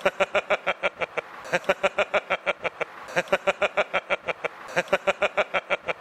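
A man laughing heartily in rapid 'ha-ha-ha' pulses, about six or seven a second. The bouts are about a second and a half long, each followed by a short catch of breath, and repeat almost identically.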